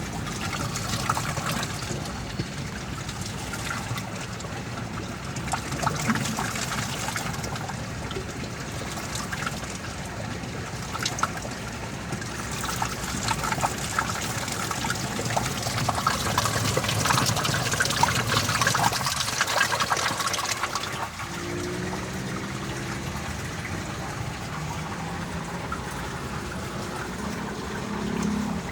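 Water from a fish-pond waterfall splashing and trickling steadily into the pond; the splashing grows softer after about twenty seconds.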